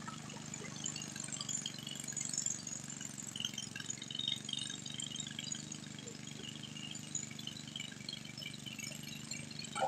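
Distant tractor engine idling, a faint steady low hum, with scattered short high chirps over it and a brief click near the end.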